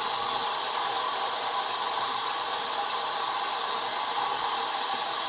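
Bathroom sink tap running, a steady hiss of water.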